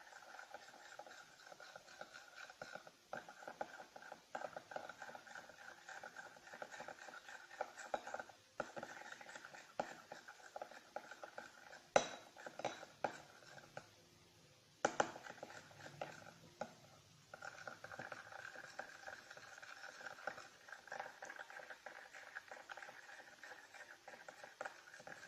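Mixing tool stirring and scraping thick white glue and water in a bowl, a continuous run of small scratchy ticks that pauses now and then. Two sharp knocks about twelve and fifteen seconds in, as of the tool tapping the bowl.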